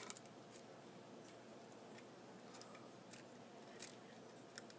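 Near silence with a few faint, scattered small clicks: a pry tool working an iPhone 4's screen assembly loose from its sticky clips.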